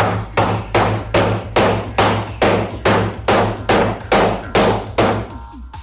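Steady series of hammer blows, about two and a half a second, driving a new spherical bearing into a coilover top-mount cup through a socket used as a drift, with a steady low hum underneath. The blows stop a little before the end.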